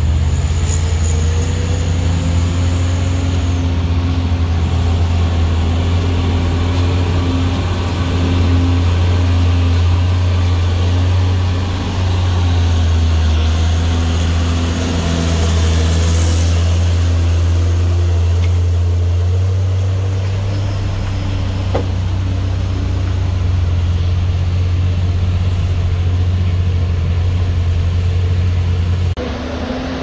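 Heavily loaded diesel truck's engine labouring up a steep climb: a loud, steady low drone that drops away about a second before the end.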